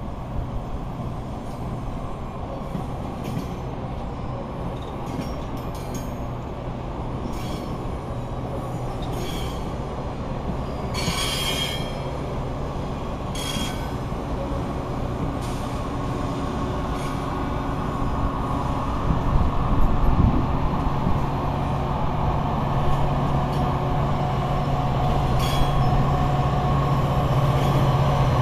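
Metra bilevel gallery passenger cars rolling past, steel wheels running on the rails with several short high squeals, the strongest about eleven seconds in. A steady low hum grows louder in the second half, with a low thud about twenty seconds in.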